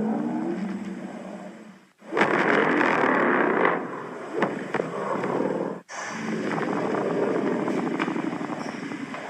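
Kaiju sound effects made from Godzilla roars and growls. A pitched roar fades out, then two harsh, rasping sounds with no clear pitch follow, each cut off abruptly. The first, about two seconds in, is the loudest.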